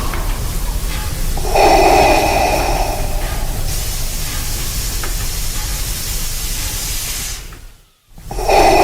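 Steady hissing, with a brief pitched sound about a second and a half in. It cuts out suddenly near the end, then the pitched sound starts again.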